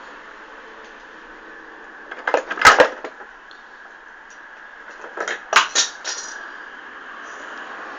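Metal spanners clattering, in two short bursts about three seconds apart.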